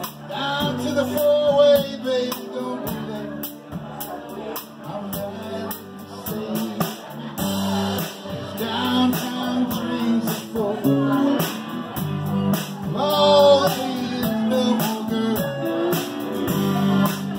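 Live rock band playing: acoustic and electric guitars, keyboard, bass and drums, with a steady cymbal beat over the chords.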